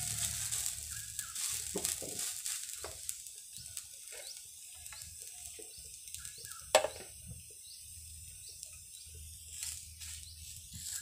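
A thin crepe batter frying faintly on a hot iron griddle, with a soft sizzle that slowly dies down. There is one sharp click about seven seconds in.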